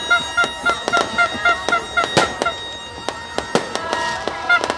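Fireworks going off in a rapid string of sharp bangs and crackles, with a fast run of short, high-pitched pips, about six a second, beside a few steady higher tones.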